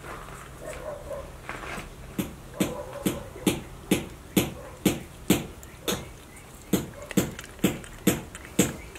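Crested porcupine chewing food: a steady run of sharp crunching bites, about two a second, starting about two seconds in.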